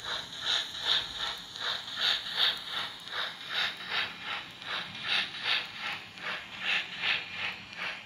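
HO-scale model of a South Australian Railways F class steam locomotive running slowly, with a steady rhythmic beat of about two to three pulses a second.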